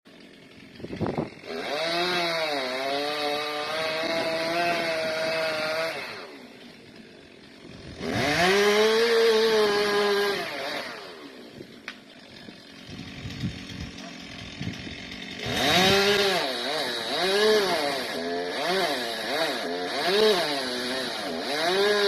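Two-stroke chainsaw cutting into the trunk of a rotting oak, its engine pitch rising and sagging under load in three spells of cutting with quieter idling between.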